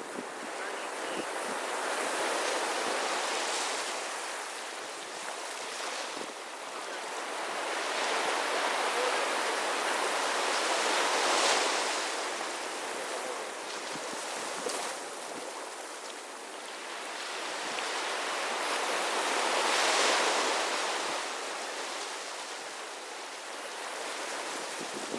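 Sea surf breaking and washing up the beach in slow surges that swell and fade about every eight seconds.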